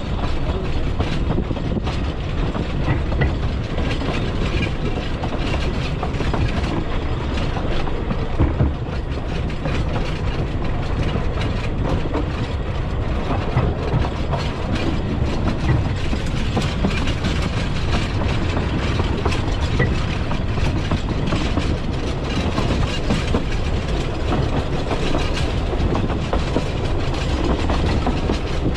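Narrow-gauge Talyllyn Railway train running steadily, its wheels rumbling and clattering over the rails without a break.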